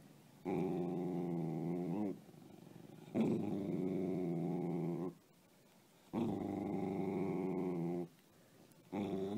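Corgi growling in four long, low growls of about two seconds each, with short pauses between them.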